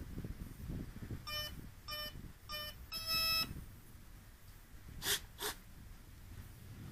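Three short electronic beeps about half a second apart, then one longer beep, typical of RC model electronics signalling at power-up. Two short breathy whooshes follow about two seconds later, over a low rumble.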